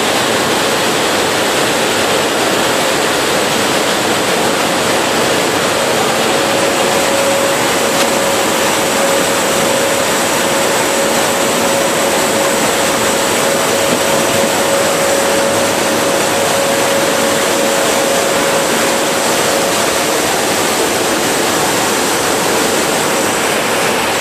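Loud, steady noise of engines and rushing air inside a military transport aircraft's cabin in flight, with a steady mid-pitched hum from about six seconds in until about twenty seconds in.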